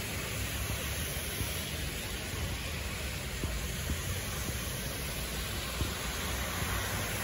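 Heavy rain falling steadily onto flooded road and water, an even hiss with a low rumble underneath.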